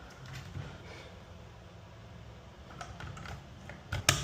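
Scattered light clicks and taps of hard objects being handled, with a sharp double knock just before the end.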